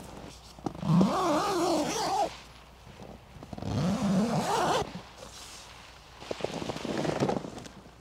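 Tent door zipper being unzipped in three long pulls. The zip's buzz rises and falls in pitch as the pull speeds up and slows, and the first pull is the loudest.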